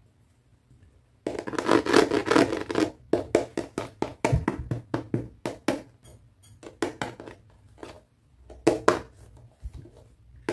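Hands handling small plastic toy accessories: a couple of seconds of dense rustling and scratching, then a run of light clicks and taps as a hard pink plastic doll handbag is picked up and turned over.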